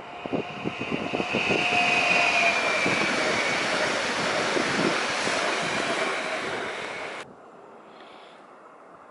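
Stadler FLIRT ETR170 electric multiple unit passing close at speed: the rush of wheels on rail, with a quick run of clicks from the wheels as it arrives and a high whine that falls in pitch as it goes by. The sound cuts off abruptly a little after seven seconds, leaving a much quieter background.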